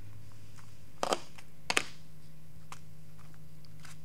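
A utensil scraping and tapping in a disposable aluminium foil pan while dry cake mix is spread out: two short scratchy scrapes, about a second in and again just under two seconds in, with a few faint clicks, over a steady low hum.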